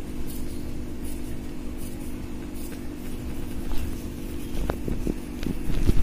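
A steady low machine hum with a rumble beneath it, and a few faint taps in the last second and a half.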